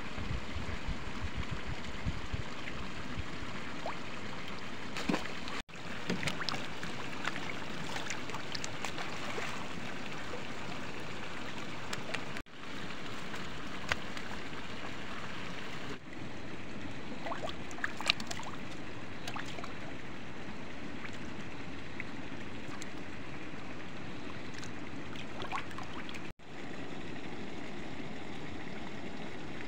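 Steady rushing of water pouring from a pipe into a trout pond, with a few short splashes and slaps from live trout being handled and flopping.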